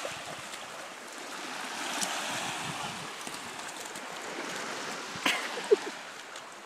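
Small waves washing onto a sandy beach, a steady watery rush, with a dog's feet splashing through the shallow edge of the surf. A sharp knock a little after five seconds in.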